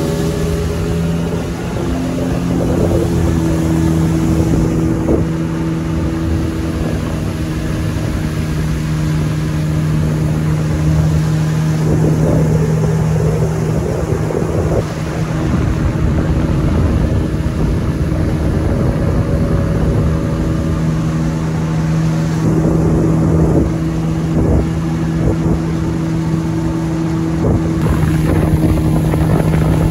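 Boat motor running at a steady pitch as the boat travels on the river, with a small change in engine note about two seconds in.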